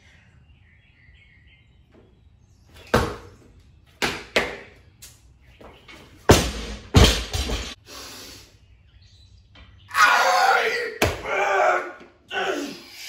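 Loaded barbell with bumper plates making a series of sharp, heavy thuds and clanks during overhead lifts, the deepest and loudest a little past the middle, followed near the end by a longer, noisier rattle of about two seconds.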